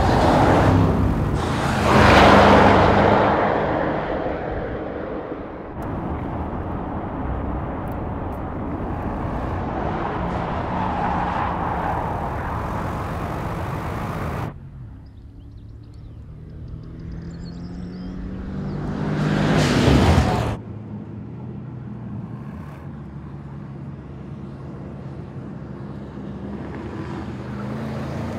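Mercedes-AMG GT 63 S E Performance's twin-turbo V8 under hard driving: it swells loudly as the car passes about two seconds in, runs on at speed, drops off suddenly about halfway through, then builds to a second loud pass that cuts off abruptly.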